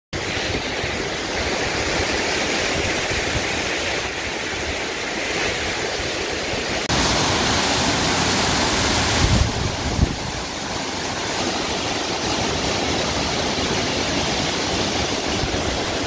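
Tall waterfall pouring down a steep rock face: a steady, full rush of falling water. It grows louder and brighter for a couple of seconds about seven seconds in, and a couple of low thumps come in the middle.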